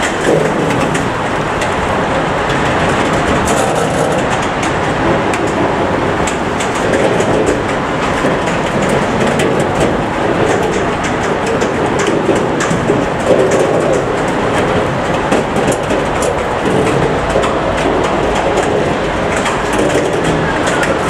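Freight train of red DB Cargo bogie hopper wagons rolling past close by: a steady rumble of wheels on rail, with repeated clacks as the wheels pass over rail joints.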